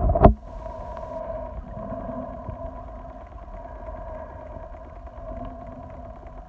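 Muffled underwater sound picked up by a phone held underwater: a sharp knock just after the start, then a steady hum with two steady tones over faint low noise.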